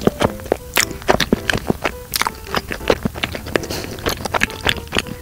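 Close-miked chewing of a chewy steamed bagel: irregular wet mouth clicks and smacks, several a second. Faint background music runs under it.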